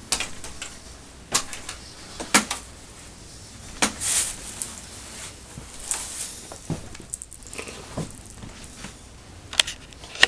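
Scattered sharp clicks and knocks, about a dozen irregularly spaced, over a faint rustling hiss.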